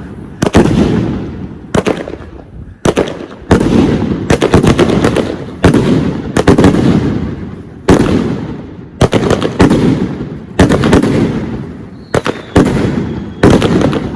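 Fireworks bursting: about a dozen loud booming reports, roughly one a second, each trailing off in a rolling echo.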